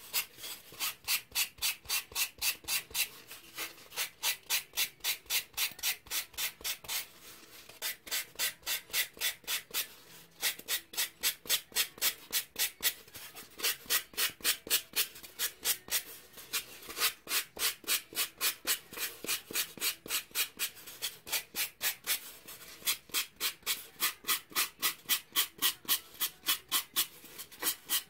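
Hand sanding with a folded sheet of sandpaper: quick, even back-and-forth strokes, about three a second, rasping over a pink doll-leg core, with a few brief pauses.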